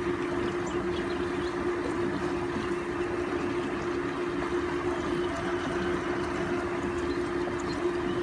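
A steady machine hum holding one constant pitch, over an even wash of noise.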